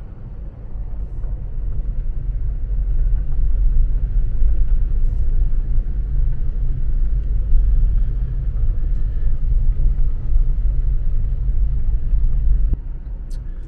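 Car driving on a gravel road, heard from inside the cabin: a steady low rumble of tyres and road. It grows louder over the first few seconds and drops off suddenly near the end.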